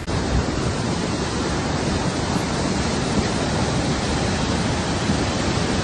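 Muddy flash-flood water rushing in a torrent: a steady, even rushing noise that cuts off suddenly near the end.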